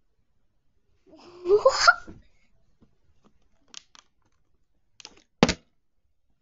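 A boy laughs briefly about a second in. Near the end a flipped, partly filled plastic water bottle comes down and falls over with one sharp knock, after a few faint taps. The knock is the falling sound that means the bottle did not land upright.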